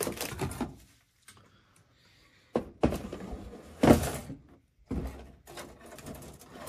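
Cardboard model-kit boxes and plastic sprues being handled and shifted about, giving several separate rustles and knocks, the loudest about four seconds in.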